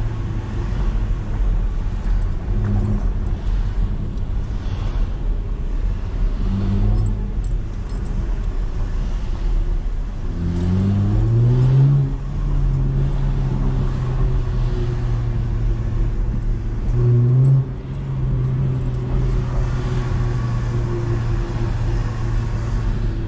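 Chevrolet Camaro engine in slow town driving, a steady low drone. There are short throttle blips about 3 and 7 seconds in, a rising rev as it accelerates about 10 seconds in, and another brief rev near 17 seconds that drops back.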